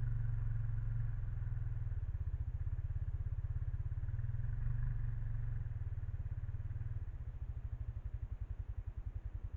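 An engine running at low revs, its beat slowing so that the separate firing pulses become distinct about seven seconds in, as if it is idling down.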